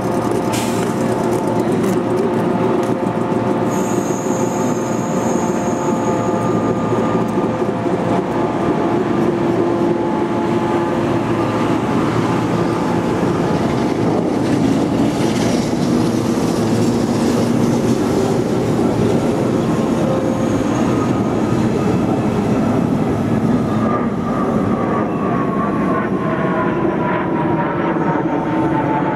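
Long JR Kyushu 415-series electric train pulling out of the station and running on past the platform: steady wheel-on-rail and motor noise as the cars go by, with a high thin squeal from about four to seven seconds in and a falling tone near the end.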